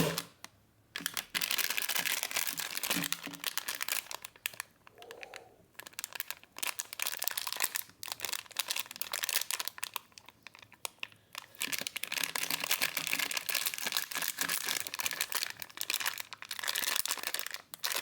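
Packaging crinkling and rustling as it is unwrapped, in stretches of several seconds with short pauses between them.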